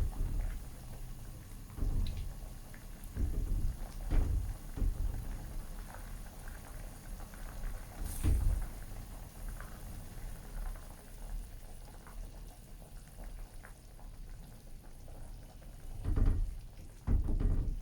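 A pot of coconut-milk gulai simmering, with irregular knocks and a few short clicks from handling the pot.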